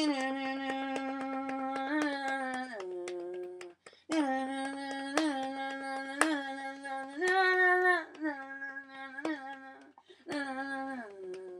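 A single voice singing a wordless melody unaccompanied, holding long notes that step up and down between a few pitches with short slides. It breaks off briefly about four seconds in and again about ten seconds in. Sharp clicks sound throughout.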